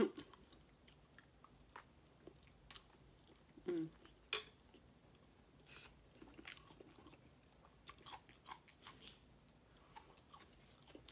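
A person chewing a mouthful of cheesy grits, with wet lip smacks and small clicks scattered through, and a couple of louder mouth noises around four seconds in.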